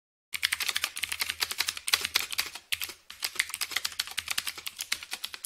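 Rapid typing on a computer keyboard: a fast, continuous run of key clicks beginning a moment in.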